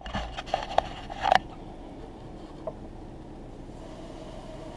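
A few sharp knocks and clicks in the first second and a half as the brass washer valve and its clear hose are handled, then a steady low background hum.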